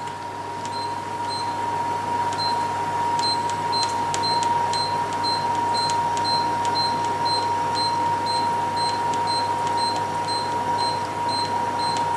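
Electric oven's control panel giving short, high beeps about three times a second as its cooking timer is held and stepped up toward 30 minutes. Under them runs the steady whine of the oven running.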